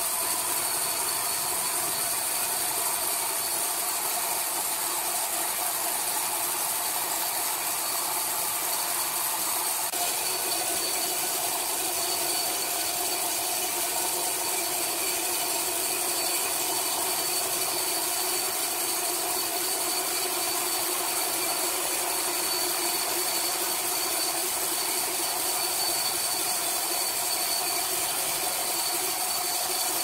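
Horizontal band sawmill running and cutting through a large log: a steady mechanical hum from the motor and the blade, with the hiss of sawing and a few constant tones.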